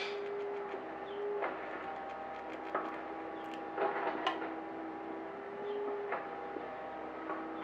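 Red squirrel gnawing a nutshell: several sharp, irregular clicks and cracks. Under them runs a steady mechanical hum, which drops slightly in pitch about a second and a half in.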